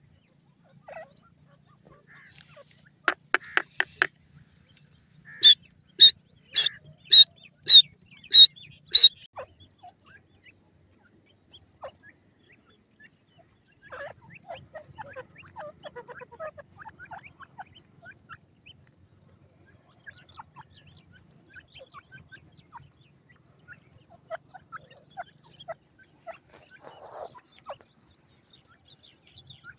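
Francolin (teetar) calling: a quick run of about five sharp notes about three seconds in, then seven loud, shrill, evenly spaced notes over about three and a half seconds. For the rest of the time there is only soft, scattered chirping.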